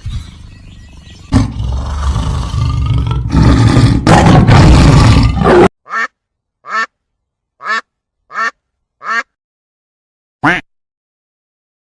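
A loud, rough, rumbling animal sound for about five and a half seconds, then a duck quacking: five short quacks in quick succession and one more after a pause.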